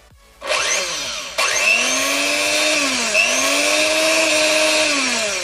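Sinbo 100 W hand mixer's brushed motor starting up and running at speed with a whine, its pitch rising after about a second, sagging and recovering about halfway through, then winding down near the end. The motor is running again after its repair.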